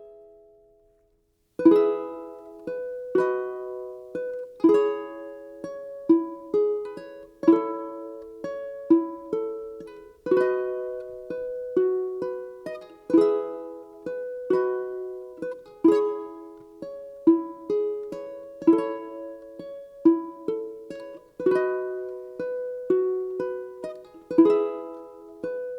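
Ukulele playing a solo instrumental intro: after a brief pause, plucked chords ring out about once every second and a half, each fading before the next.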